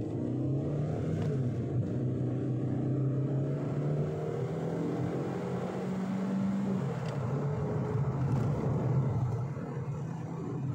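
2012 Skoda Octavia 1.6-litre engine accelerating hard from a standstill. Its pitch climbs steadily and falls back at gear changes about a second and a half in and about seven seconds in.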